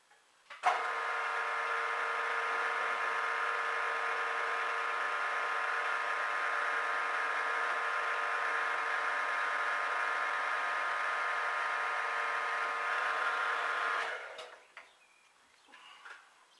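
Warco Major GH geared-head mill-drill running its spindle at a steady speed: an even motor and gear whine with many tones. It starts about half a second in and is switched off about 14 s in, winding down quickly.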